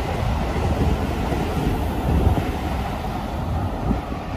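JR 209-series electric commuter train pulling into a station platform and slowing to a stop. Its low running noise fades gradually as it comes to rest.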